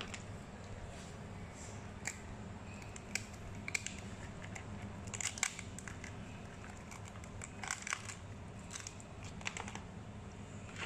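Crab shells clicking and cracking as crabs are handled and their top shells pried off by hand in a plastic basin. The sharp clicks come irregularly, over a steady low hum.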